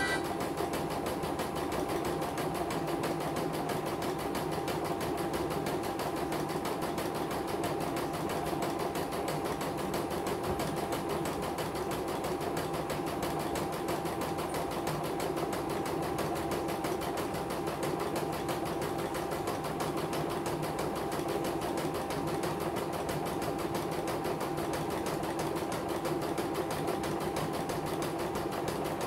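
CNY portable computerised embroidery machine stitching a design at a rapid, even pace, the needle bar and hoop drive going steadily. It is a test run after servicing, and the machine stitches without trouble.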